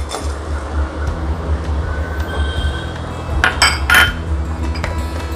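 Two sharp clinks of a glass bowl knocking against a nonstick kadai, about three and a half seconds in and again half a second later, as the last powdered jaggery is tipped out. Light background music with a steady bass plays underneath.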